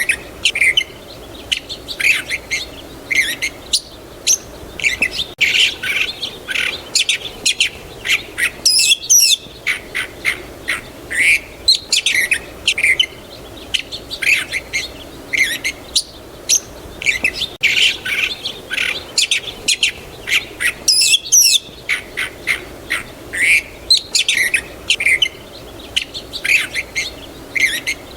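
Songbirds chirping continuously: many short, quick chirps and tweets, with an occasional fast rising-and-falling whistle, over a faint steady background hiss.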